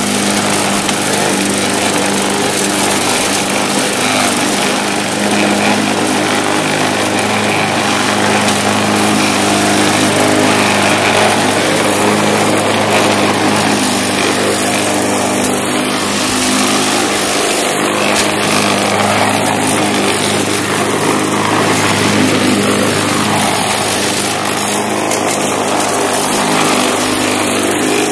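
Bolens walk-behind mulch mower's Briggs & Stratton engine running steadily under load while it cuts grass.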